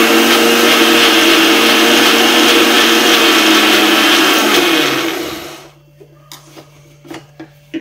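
Electric mixer grinder running at full speed, grinding coconut with a little water to a coarse, crushed consistency. It is switched off about five seconds in and the motor spins down, followed by a few light clicks.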